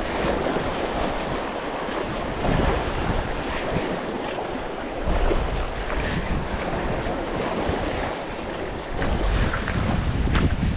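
Wind buffeting the microphone over surf washing against jetty rocks, with the low rumble swelling in gusts several times.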